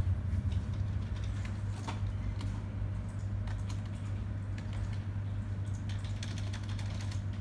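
Computer keyboard keys tapped: scattered single keystrokes, then a quicker run of several about six seconds in, over a steady low hum.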